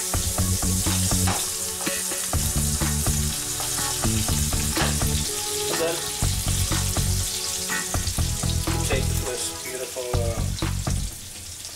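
Bacon sizzling and frying in a non-stick pan, with short scrapes and clicks of a wooden spatula stirring it. A low hum cuts in and out several times underneath.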